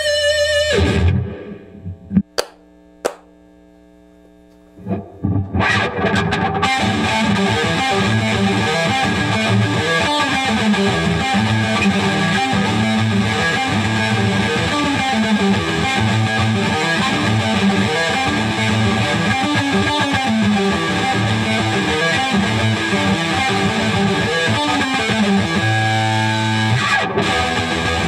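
Dean Razorback electric guitar played through heavy distortion. A bent note opens, then a short lull with a couple of plucked notes and a faint ringing chord. From about five seconds in comes a fast heavy-metal riff of chugging low notes, with a held chord near the end.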